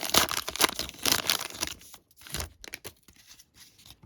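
A plastic trading-card pack wrapper being torn and crinkled for about two seconds, followed by fainter rustling and light clicks as the cards are handled.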